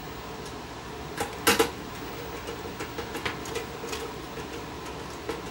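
Small clicks and taps of a hand screwdriver and metal parts as screws are fitted to hold a TV/VCR power transformer in place, with two sharper knocks about one and a half seconds in.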